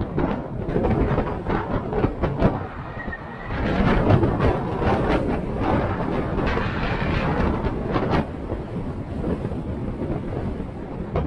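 4x4 driving over a rough off-road track: a steady rumble of tyres and body with repeated knocks and clunks, louder for a few seconds in the middle.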